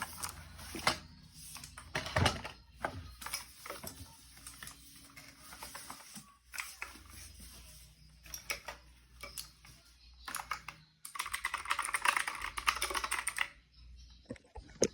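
Keys of a 61-key mechanical gaming keyboard being pressed: scattered single clicks, then a quick run of rapid typing from about eleven seconds in, lasting a couple of seconds.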